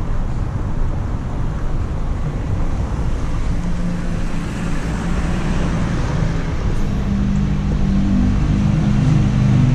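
Road traffic: a motor vehicle's engine hum that comes in partway through and grows louder over the last few seconds, over a steady low rumble.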